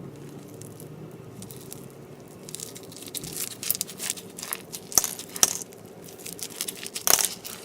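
Slushee slime with crystal beads mixed in, crackling and crunching as it is squished and worked. The crackling starts about two and a half seconds in and grows denser, with a few sharper snaps.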